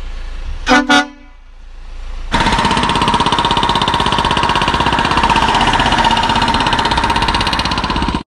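Two short vehicle horn toots close together. About two seconds in, a loud, steady engine noise with a fast, even pulse starts and keeps running until it cuts off abruptly: a backhoe loader digger working.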